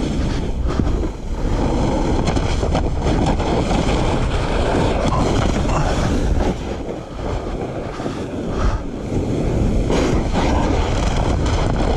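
Wind rushing over the microphone at speed while a splitboard slides and scrapes over wind-crusted snow. The noise eases for a moment about seven seconds in, then builds again.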